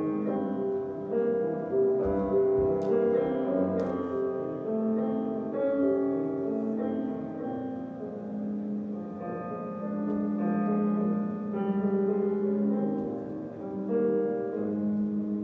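Piano music accompanying a ballet barre exercise: held notes and changing chords at an even pace.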